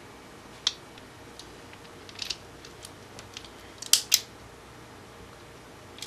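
RJ45 modular plug crimper tool clicking as its handles are squeezed to crimp an RJ45 connector onto a Cat5e cable. Scattered sharp clicks, with the loudest two close together about four seconds in.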